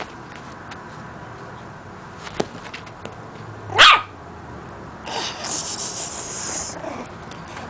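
A puppy gives a single short, high bark about four seconds in, with a few faint clicks before it. A hissing noise follows for about two seconds.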